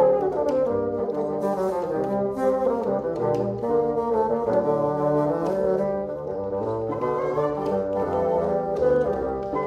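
A bassoon quartet playing, several bassoons in harmony with a low bass line. About halfway through, the music changes to a different piece.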